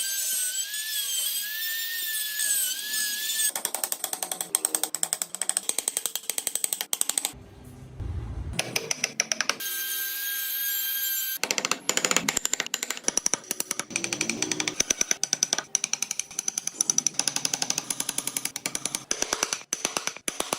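Power tools working wood: a high whine that wavers in pitch for the first few seconds, then rapid dense clicking and scraping, broken near the middle by another brief steady whine.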